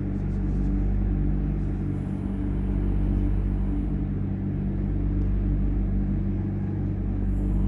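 Steady low mechanical hum made of several fixed low tones, over a deep rumble, unchanging throughout.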